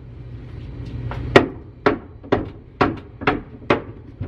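Hammer blows knocking old wooden shelving boards loose: about six sharp strikes, roughly half a second apart, starting a little over a second in.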